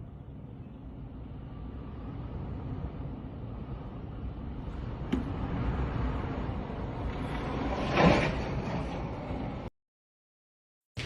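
Storm wind blowing hard across the microphone, a steady low noise that grows stronger, with a click about five seconds in and a sharp loud gust or knock about eight seconds in. The sound cuts off abruptly shortly before the end.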